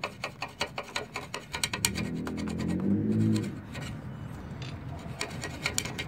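A flat hand file rasping in quick back-and-forth strokes on the painted steel scooter frame, scraping the paint down to bare metal for a ground-wire contact. The strokes are dense at first and thin out later on. A low pitched hum rises over them from about two seconds in to about three and a half seconds in.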